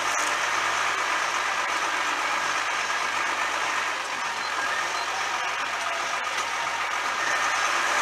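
New Holland TVT 145 tractor's diesel engine running steadily while pulling a five-furrow plough, heard from beside the exhaust stack. The low end eases slightly about halfway through.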